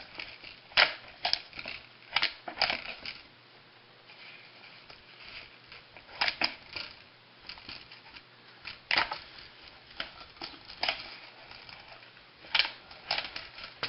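Irregular light clicks and knocks from handling a Honda ATC 110 recoil starter's parts while its cord is wrapped around it, with quieter stretches between.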